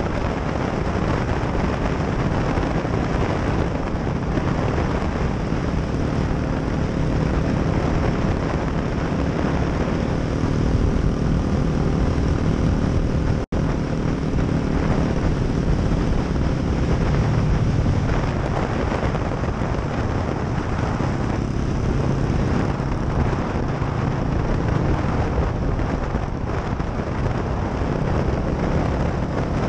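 Motorcycle riding along, its engine running steadily under a loud rush of wind noise on the microphone. The sound cuts out for an instant about halfway through.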